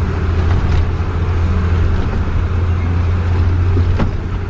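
Motorhome engine heard from inside the cab, a loud, steady low drone as it pulls up a steep grade.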